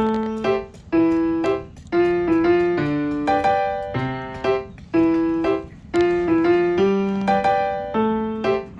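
Background piano music: a light, repeating phrase of struck notes.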